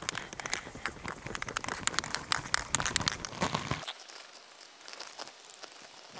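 Plastic drop sheet crinkling and rustling underfoot. About four seconds in, this gives way to a quieter, steady hiss from an aerosol can spraying Plasti Dip rubber coating.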